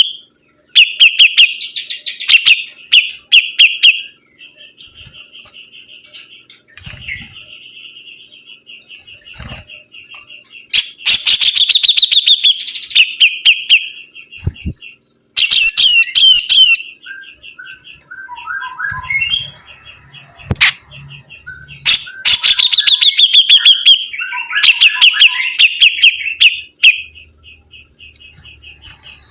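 A sibuntung songbird singing in full voice: loud bursts of fast chirping phrases come again and again, with quieter runs of rapid, evenly pulsed notes between them.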